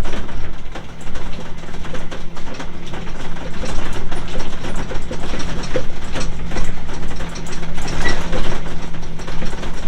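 Kubota B2650 compact tractor running, its engine humming steadily under dense mechanical rattling and clanking.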